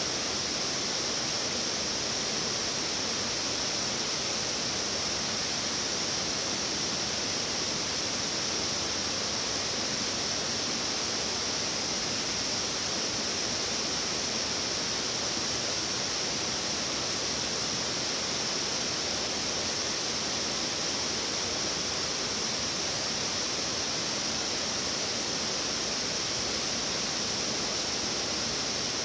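Water pouring over a low-head dam spillway: a steady, unbroken rush of falling water, loud enough to drown out a voice.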